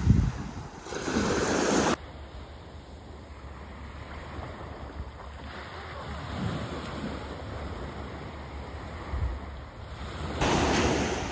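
Ocean surf washing on the beach, with wind buffeting the microphone. There is a thump at the very start. The sound drops abruptly to a quieter wash about two seconds in and jumps back up to a louder wash near the end.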